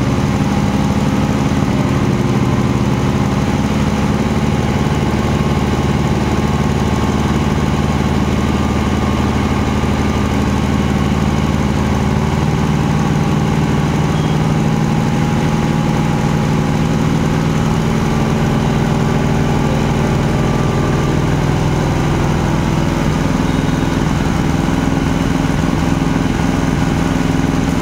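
A motor vehicle engine idling steadily, a low, even hum that does not change.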